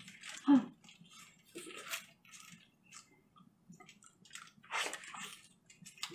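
Close-up eating sounds: wet biting, sucking and chewing on braised pork ribs, a run of short smacks with the strongest bite a little before the end. A brief vocal sound comes about half a second in.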